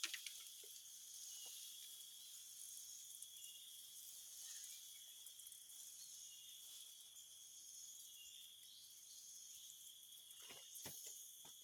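Faint, steady chorus of insects, a high-pitched continuous trilling, with a few soft knocks near the end.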